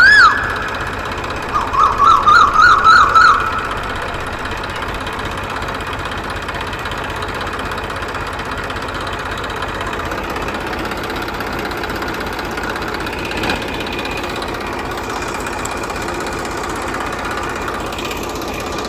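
A small engine running steadily with a fast, even chugging. In the first three seconds or so there is a loud siren-like tone that sweeps up and down once, then warbles rapidly for about a second and a half.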